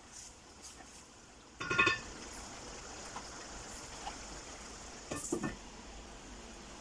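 Wooden spatula knocked against an aluminium cooking pot with a short ringing clatter, then a glass lid set down on the pot with another clatter about five seconds in. Under both, the chana masala gravy simmers with a faint steady sizzle.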